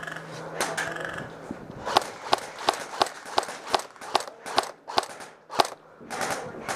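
Airsoft gun firing in semi-auto, a run of about a dozen sharp shots at roughly three a second.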